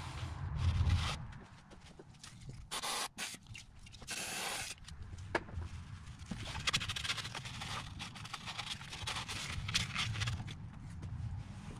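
Irregular rubbing, scraping and light clicks of a paper towel wiping spilt transmission fluid off a gearbox casing.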